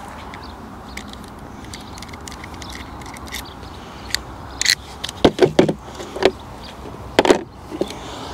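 Several sharp metal and plastic clicks and knocks, bunched in the second half, as a hand crimping tool and its dies are handled and changed over a plastic tool case, with a steady outdoor hiss underneath.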